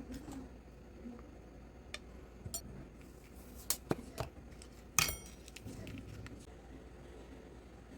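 Small metal parts being handled: scattered clicks and clinks, a quick cluster of them near the middle, and one sharp metallic clink that rings briefly about five seconds in.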